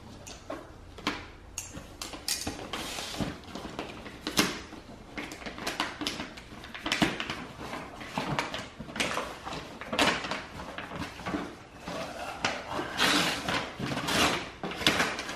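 Cardboard box being opened: scissors slitting the packing tape, then the box flaps and brown packing paper rustling and crinkling, with irregular scrapes and knocks.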